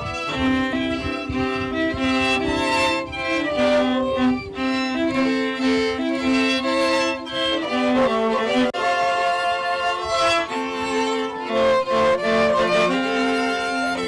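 Bowed string music led by a violin, with lower strings underneath, playing held notes that change every second or so.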